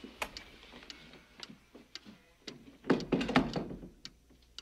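A door being shut with a thunk about three seconds in, after a few light clicks.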